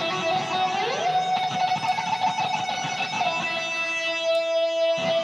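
Live band music led by an amplified electric guitar playing sustained lead notes, one bent upward about a second in and then held.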